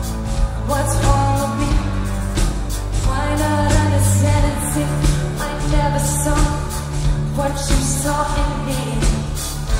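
Live pop band playing through the venue's amplification, with a woman singing the lead vocal into a microphone over sustained bass notes and steady drum hits.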